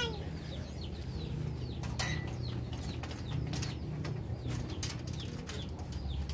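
Birds chirping repeatedly over a steady low background, with several sharp metallic clicks and rattles from the latch and frame of a wire-mesh cage door.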